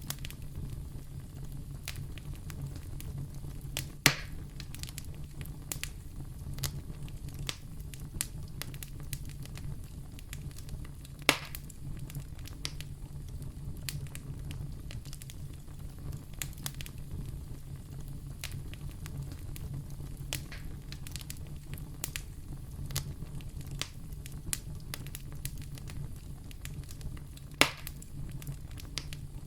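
Wood fire burning in a fireplace: a steady low rumble of flames with scattered crackles and three louder pops.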